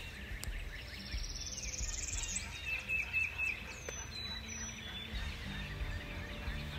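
Dawn chorus of songbirds: a rising trill of rapid notes about a second in, a short held note and thin high whistles in the middle, over a scatter of chirps.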